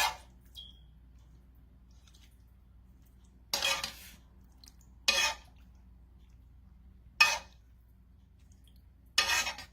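A utensil scraping and clinking against cookware in five short strokes a second or two apart, with a faint ringing clink after the first, as sauce is scooped out and poured over plated greens.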